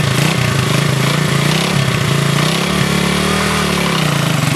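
Motorcycle engine of a home-made two-wheel walking tractor running steadily. It is revved up briefly a little past halfway, then drops back.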